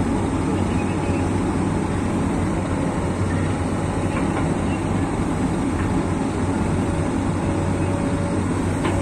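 Komatsu PC200 amphibious excavator's diesel engine running steadily as the machine crawls forward on its pontoon tracks through mud, with a few faint clicks over the drone.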